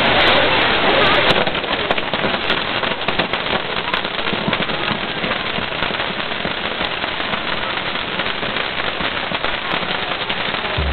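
Fireworks crackling steadily with a dense run of small rapid pops as they throw a shower of sparks, a little louder for the first second or so.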